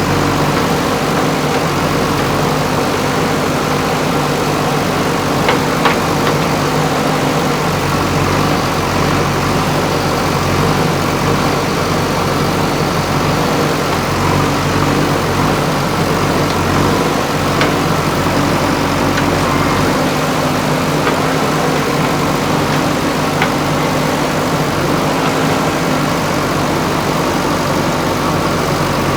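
JCB 3DX backhoe loader's diesel engine running steadily at a constant pitch, with a few faint metallic clicks.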